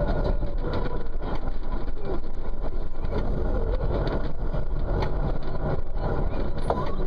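Tractor engine running steadily, heard from inside the cab, with a few short clicks and knocks scattered through.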